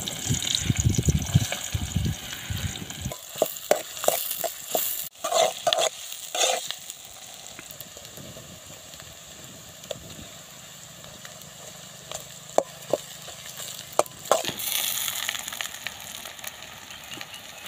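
Chopped onions dropped into hot oil in an aluminium pan, sizzling loudly for the first few seconds and then settling into a steady quieter frying hiss. Scattered sharp clicks, and a louder burst of sizzling about fourteen seconds in as more pieces go into the oil.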